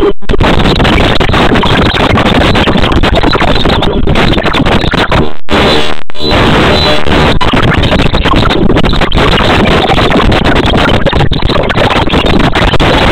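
Loud, dense background music that sounds harsh and noisy. It cuts out briefly twice around the middle.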